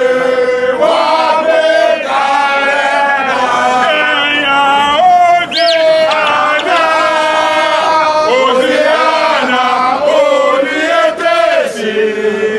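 Group of football supporters chanting a song together, men's voices in unison holding long sung notes, with a brief high rising-and-falling call about six seconds in.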